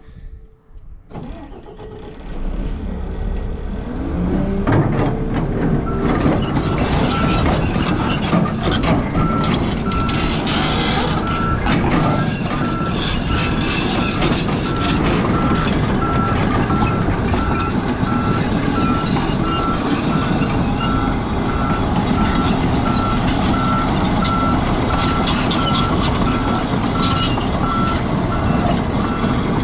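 Large excavator's diesel engine running hard, rising in speed over the first few seconds and then holding steady, with its travel alarm beeping evenly from about six seconds in.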